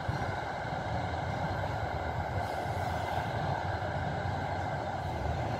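Metre-gauge intercity passenger train running away on the rails, a steady running noise of wheels and coaches with no distinct knocks or horn.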